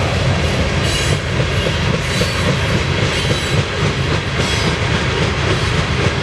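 Covered hopper cars of a grain train rolling past, with a steady low rumble and the wheels clacking over the rails.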